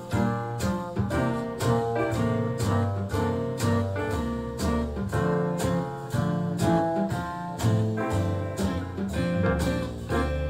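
Instrumental music with guitar, bass and a steady beat, played through a Sony SRS-XB22 Bluetooth speaker with its Extra Bass mode on.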